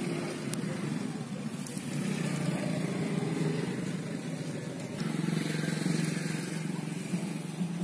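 A low, steady engine hum, as of a nearby motor vehicle, swelling louder twice.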